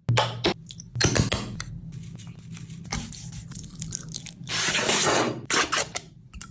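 Wet kitchen sounds of chicken being handled for frying: irregular squelches, splashes and drips with sharp clicks, and a hiss lasting about a second past the halfway point.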